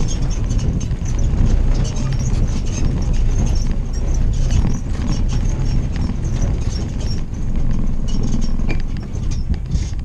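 Willys CJ-2A jeep driving over rutted dirt, its four-cylinder Go-Devil flathead engine rumbling steadily. Over it the body and suspension rattle and clunk irregularly as the jeep bounces across the track ruts.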